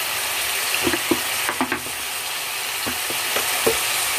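Beef pieces sizzling as they are browned (kosha) in ginger-garlic paste in an aluminium pot, with a wooden spatula stirring and knocking against the pot a few times.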